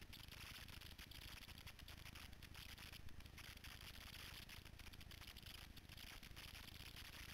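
Near silence: a faint steady hiss, with no engine note or voices standing out.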